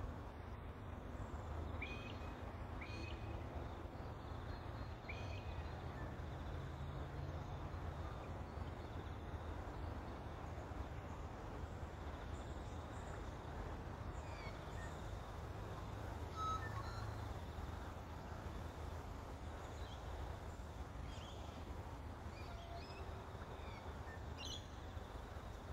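Outdoor ambience: a steady low rumble with scattered short bird chirps, a few close together in the first six seconds and more faint ones later.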